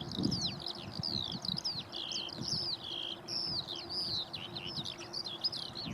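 Small songbirds singing: a busy, unbroken run of quick chirps, falling whistles and a few held notes, over a low steady rumble.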